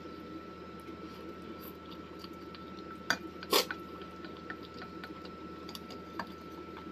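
Chopsticks clicking and scraping in a stainless steel bowl while noodles are eaten, with quiet chewing. There are scattered light clicks and two sharper ones just past halfway, over a steady faint hum.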